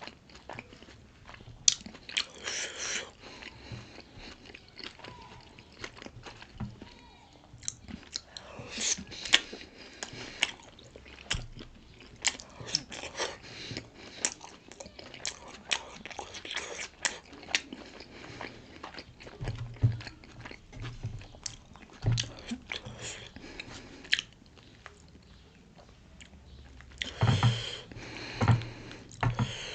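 Close-up mouth sounds of someone biting and chewing pork momo dumplings: irregular smacks and clicks throughout, with a few louder bursts near the end.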